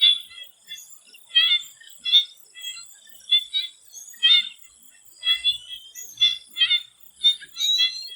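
Swamp frogs calling in short, repeated calls, one every half second to a second, with a steady high-pitched hum underneath.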